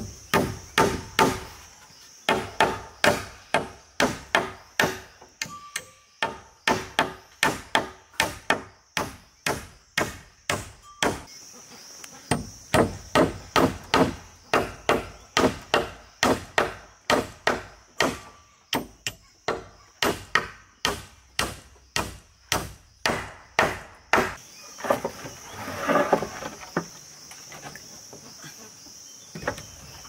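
Hammer driving steel nails into rough wooden planks: sharp blows about two a second, with a few short pauses. The blows stop about 24 seconds in.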